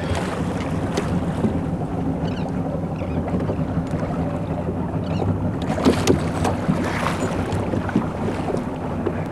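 Motorboat engine running steadily, with wind on the microphone. A few short knocks come around the middle.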